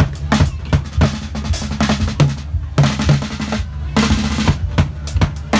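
A Tajon drum box, a compact kit with a 10-inch snare, 12-inch tom and 16-inch bass drum, played in a quick groove. Deep bass kicks and tom strokes mix with crisp snare hits, and two dense runs of snare strokes come about three and four seconds in.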